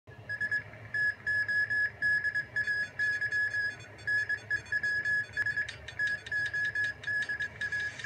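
News bulletin opening theme music: a high synth beeping pattern repeating a couple of times a second, joined in the second half by sharp percussive hits. It plays through a laptop's speakers.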